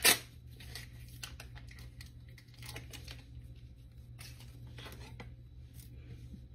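Paper wrapper being peeled and torn off a stick of butter: a sharp rip right at the start, then scattered faint crinkles.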